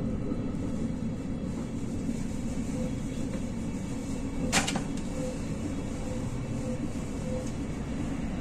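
Steady low rumble of a road vehicle on the move, heard from inside the cabin. A single sharp click sounds about halfway through.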